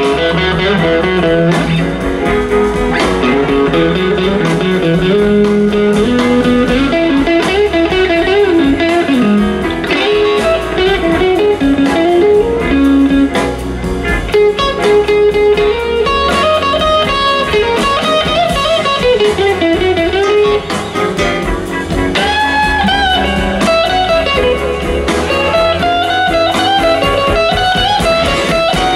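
Live blues band: an electric guitar plays a solo line with bent, gliding notes over bass and drums.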